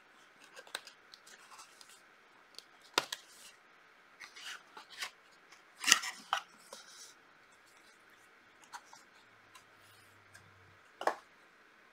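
A small cardboard box being opened by hand and a plastic palette case slid out of its cardboard sleeve: scattered light scrapes, rustles and clicks. The louder handling noises come about three and six seconds in and once more near the end.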